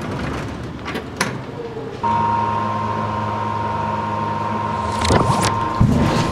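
A steady electric hum with a single high whine over it switches on abruptly about two seconds in and holds steady; rattling knocks join it near the end.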